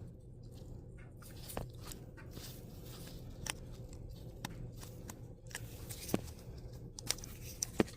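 Scattered small plastic clicks and taps as an ignition coil's electrical connector and its locking clip are worked by hand, over a faint steady low hum.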